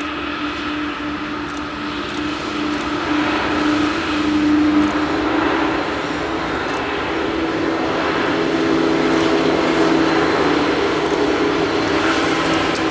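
Several diesel-electric locomotives heading a double-stack container train pass at close range, their engines running with a steady, humming drone that swells twice as the units go by. Faint clicks from the wheels on the rails come in near the end.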